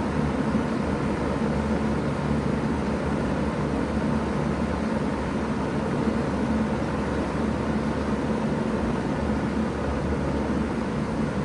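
2000 Bard 3-ton wall-hung heat pump running steadily in cooling mode: an even rush of air over a low, constant hum.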